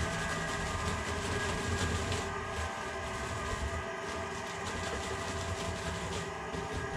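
Yellow Cramer electric grain mill running steadily while grinding grain into fine meal, a constant mechanical hum and whine with an even rumble underneath.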